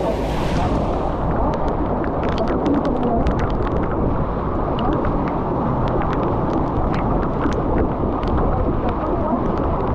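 Typhoon wind and rain: a loud, steady rumble of storm wind on the microphone, with many sharp ticks scattered through it.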